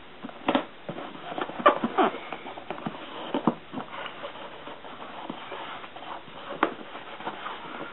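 Irregular crackles and soft taps of fingers pressing and rubbing plastic tape down onto a corrugated plastic (Corex) hull.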